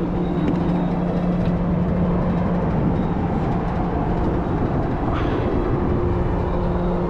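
Steady mechanical drone with a constant low hum over a broad rumble, typical of a ship's machinery and ventilation running; a brief higher-pitched sound about five seconds in.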